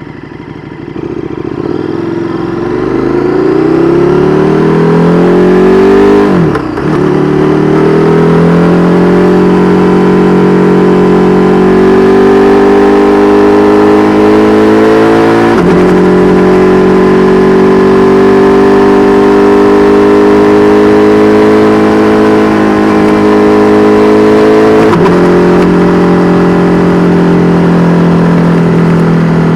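KTM 1290 Super Duke R Evo's V-twin engine through an Austin Racing V3 Mini exhaust, accelerating and upshifting three times. The pitch climbs, then drops sharply at each shift, about six, fifteen and twenty-five seconds in. After the later shifts the revs climb only gradually.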